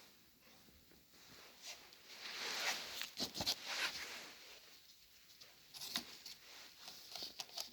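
A cat moving about inside a cat hideout, making soft scratching and rustling noises in irregular short spells with little clicks and taps between.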